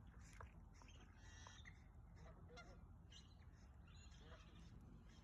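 Faint distant waterfowl calls, a few brief honks, over a low steady background rumble.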